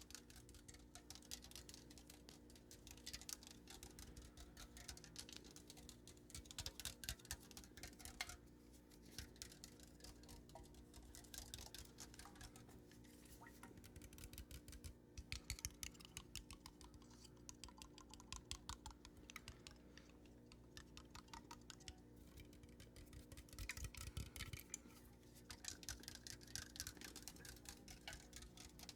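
Light, quick tapping for ASMR: runs of rapid soft clicks that come and go in bursts, over a faint steady hum.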